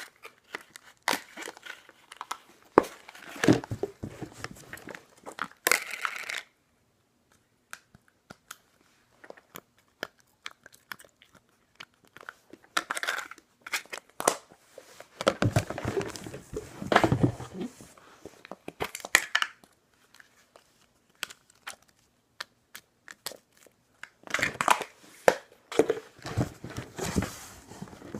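Slime being stretched, poked and squished by hand: irregular bursts of sticky clicks and crackles, with short pauses between handfuls.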